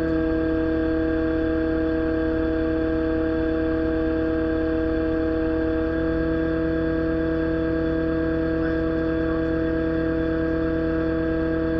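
Excavator running steadily with the boom and bucket at rest: a constant, unchanging drone with a steady tone above it.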